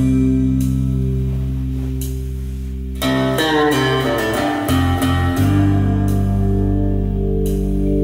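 Guitar music played back through a Harman Kardon Aura Studio speaker: held low bass notes, with a flurry of quick plucked notes from about three to five seconds in.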